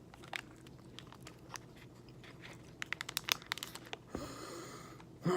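Crunchy chewing of a peanut granola bar, with a quick run of crackles about three seconds in, then a short steady hiss for about a second near the end.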